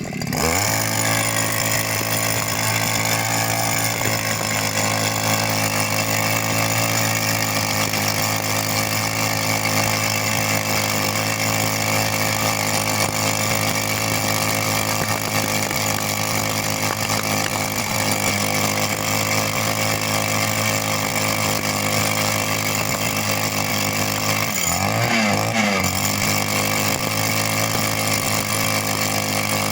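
Two-stroke petrol rock drill running steadily while drilling, with one brief wavering dip in engine pitch near the end.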